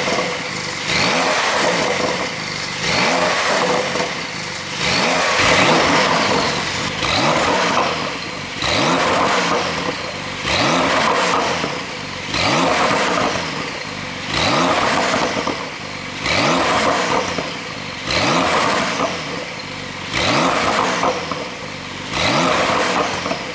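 Porsche 992 Carrera S twin-turbo flat-six, exhaust flaps held fully open by an ECU tune, revved over and over. Each rev rises in pitch and then falls away, about once every second and three-quarters, roughly a dozen times.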